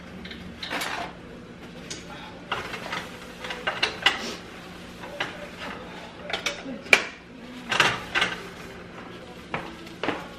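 Kitchen clatter: scattered knocks and clinks of dishes, utensils and containers being handled on a countertop, over a steady low hum.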